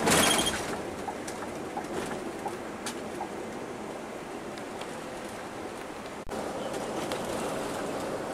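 Steady engine and road noise inside the cab of a moving Scania K360 coach, opening with a brief loud burst with a high ringing tone. About six seconds in the noise breaks off and comes back slightly louder.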